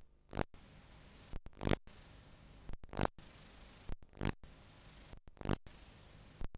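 Videotape playback noise from a blank or damaged stretch of tape: steady hiss broken about every 1.3 seconds by a brief cut-out and then a loud swishing burst.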